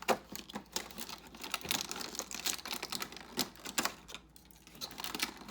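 Cardboard advent calendar door being pried open and a small wrapped toy being handled: a rapid run of clicks, taps and crinkles, thinning out near the end.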